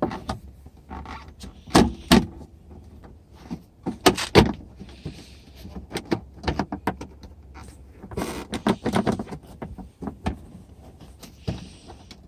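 Plastic interior door panel on a 2009 Jeep Wrangler rear door being wiggled and pried against its retaining clips: an irregular series of clicks, knocks and rattles, the loudest about two and four seconds in, as the caught clips are worked loose.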